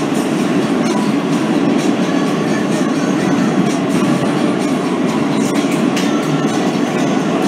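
Kawasaki R160B subway car running at speed, heard from inside the car: a steady rumble of wheels on rail, with scattered light clicks.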